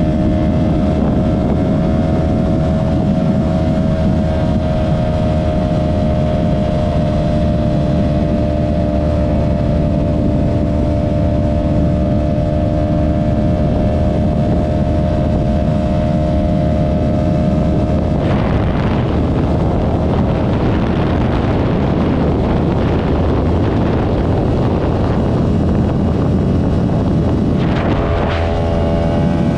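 2023 Yamaha R3's parallel-twin engine through an M4 Street Slayer exhaust, running at steady revs with wind noise on the microphone. About two thirds of the way through, the steady note turns rougher and noisier. Near the end it dips briefly and settles back into a steady note.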